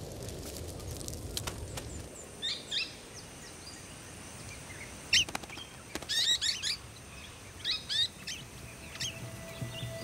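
Golden-shouldered parrots giving short, high chirps in scattered clusters from about two and a half seconds in. Before that, the low rush and occasional crackle of a grass fire, which stops about two seconds in.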